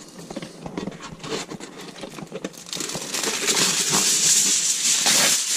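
Aluminum foil being pulled from its box and crinkling: faint handling clicks at first, then a louder steady crinkling from about three seconds in as the sheet unrolls.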